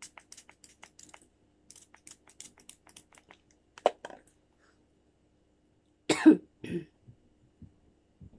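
Small pedicure tool working on toenails, making a run of light clicks and scrapes, with a sharper click about four seconds in. A cough about six seconds in, in two parts, is the loudest sound.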